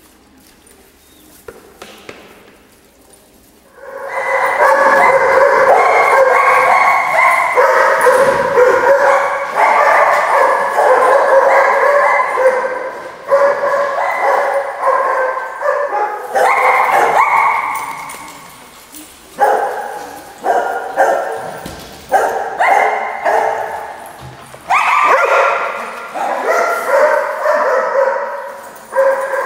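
A pack of dogs barking and yipping together, starting about four seconds in as a dense, continuous din. After the middle it breaks up into separate loud barks, each followed by an echoing decay.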